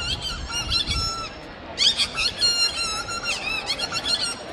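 A street performer dressed as a giant baby making high, squeaky baby-like squeals and cries in short, wobbling bursts, with a brief pause a little over a second in before the squealing resumes.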